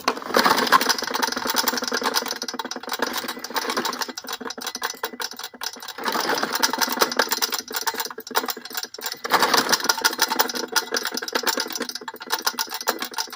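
Cracked, oil-starved small lawnmower engine being cranked in three long spells with a rapid rattling clatter, with short pauses between them, turning over without starting.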